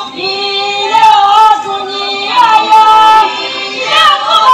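Young women of a Sumi Naga troupe singing a traditional folk song together without accompaniment, in long held notes that slide between pitches.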